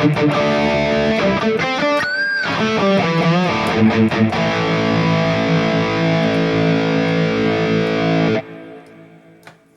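Distorted electric guitar played through a digital amp-modeling unit on a high-gain setting. Riffing gives way to bent, vibrato notes about two to three seconds in, then a held chord that is cut off abruptly about eight and a half seconds in.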